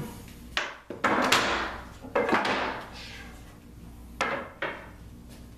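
Wooden rib knocking and clattering against the plywood box frame as it is handled and set in place: several sharp wooden knocks, the loudest about a second in.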